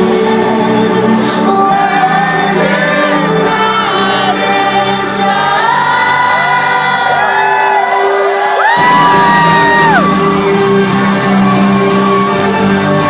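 Loud trance music from a club DJ set, with a crowd shouting, whooping and singing along over it. The bass drops out for a short breakdown and kicks back in a little before nine seconds in.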